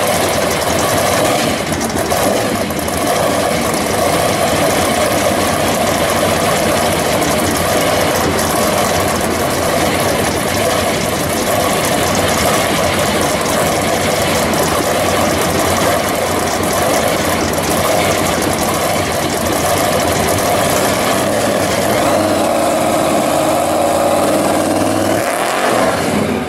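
Supercharged engine of a custom 1951 Chevy pickup running loud and steady at idle, then revving with rising pitch as the truck pulls away in the last few seconds.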